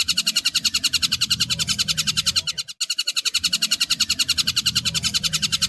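Tengkek buto kingfisher giving a rapid chattering call, a fast even run of sharp, high notes at about ten a second, with a short break nearly three seconds in.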